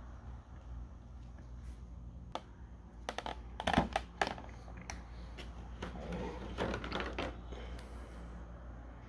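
Clear plastic packaging tray clicking and crackling as an action figure is pulled out of it: a quick run of sharp clicks about three to four seconds in, then softer crackling a little later.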